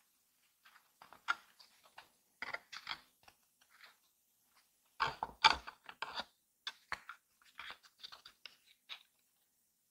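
Stiff paper and cardstock pieces of a paper toy being handled and pressed together, close to the microphone: irregular crisp crinkles, scrapes and light taps, with a louder cluster about five seconds in.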